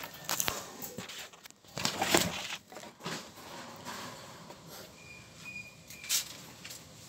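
Handling noise from the recording phone: irregular rubs, scuffs and knocks as it is gripped against a palm, with a sharper knock about six seconds in.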